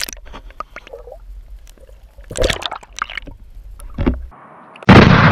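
Water sounds picked up by a camera under the surface of a pond: scattered small clicks, two short splashing thumps about two and a half and four seconds in, then a sudden loud rush of churning water near the end.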